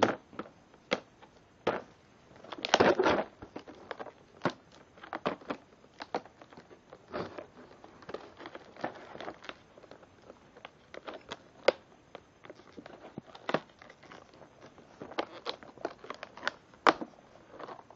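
Stiff clear plastic clamshell packaging being cut and pulled open with a knife: irregular crackling and snapping clicks, with a longer, louder crinkle about three seconds in.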